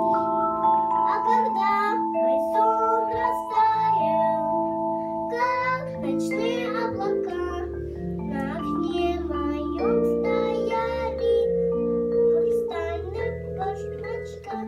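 A young girl singing into a microphone over backing music of long held notes.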